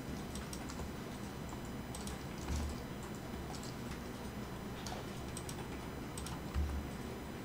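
Light clicks of a computer keyboard and mouse at irregular intervals as the modelling software is worked, with two soft low thumps a few seconds apart, over a steady low hum.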